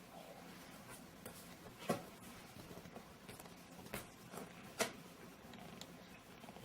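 Quiet room with a faint steady hum and a few brief knocks or taps, the loudest about two seconds in and another near five seconds.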